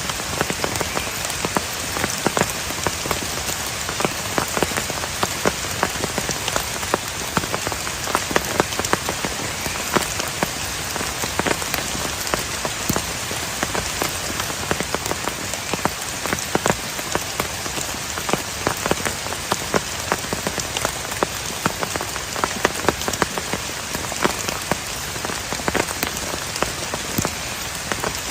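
Heavy rain falling steadily, with many individual drops striking a nearby surface in sharp, irregular clicks over the continuous hiss.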